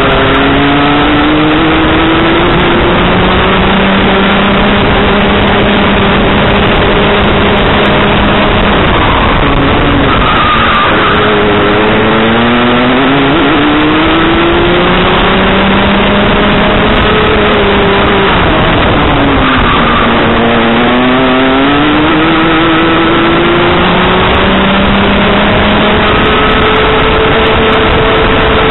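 Rotax Max Junior 125cc two-stroke kart engine at racing speed. Its pitch climbs steadily along the straights and falls away sharply about ten and twenty seconds in as the kart slows for corners, then climbs again.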